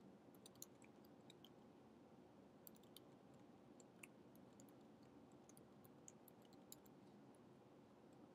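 Faint computer keyboard typing: scattered, irregular keystrokes over a low steady room hum.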